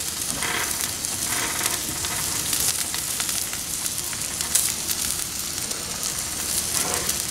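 Steak searing on a hot flat-top griddle, sizzling and crackling steadily.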